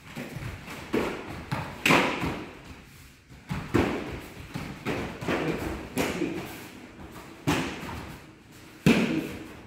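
Taekwondo sparring: kicks and punches land on padded chest protectors and feet strike the foam mat, giving about seven irregular sharp thuds that ring briefly in the hall. The loudest come about two seconds in and near the end.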